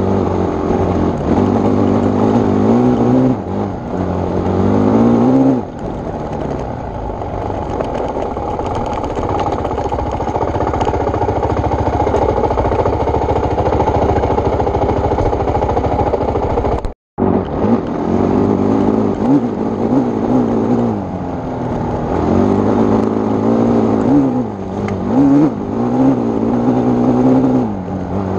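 Honda CRF450X's single-cylinder four-stroke engine running under load on a dirt climb, its pitch rising and falling with throttle and gear changes, steadier through the middle. The sound cuts out for a moment a little over halfway through.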